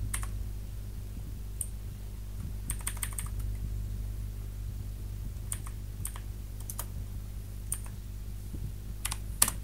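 Computer keyboard keystrokes, sporadic and in small clusters of quick presses, as shell commands are typed. A low steady hum lies under them.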